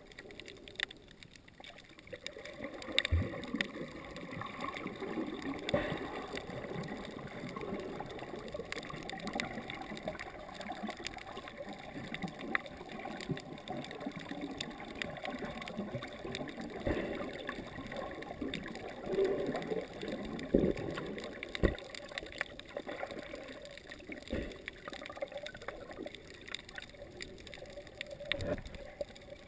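Muffled underwater sound picked up by a camera held below the surface: steady gurgling water noise with scattered clicks and a few louder knocks.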